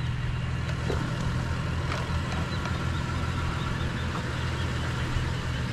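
Vehicle engine idling steadily with a low hum, with a couple of faint knocks about one and two seconds in.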